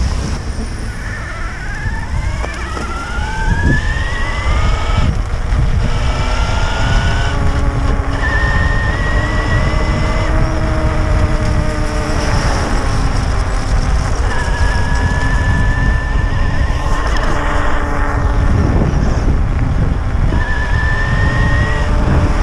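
Electric fatbike's motor whining, its pitch rising several times as the bike picks up speed, over a steady low rumble of wind and road noise.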